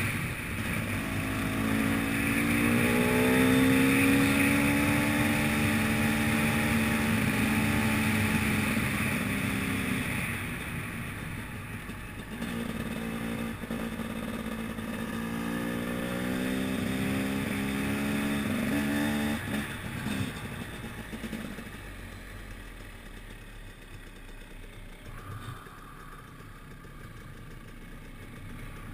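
Enduro motorcycle engine being ridden, its pitch rising and falling twice as the throttle opens and eases. In the last third it drops to a quieter low run near idle.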